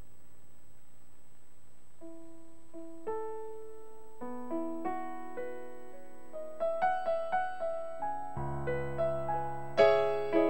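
Yamaha CP stage piano played slowly: after a low hum, single notes start about two seconds in and build into a melodic line, with low bass notes and fuller chords joining near the end.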